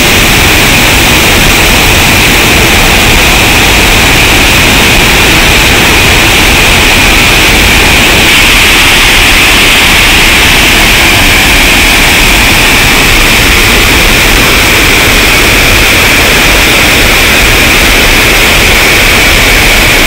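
Loud, steady rush of water pouring over a waterfall and check dam, an unbroken hiss with no pauses.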